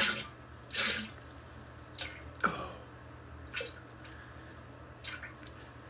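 Several short plops and splashes into toilet-bowl water, spaced irregularly a second or so apart; the clearest, about two and a half seconds in, drops quickly in pitch. A faint steady hum sits underneath.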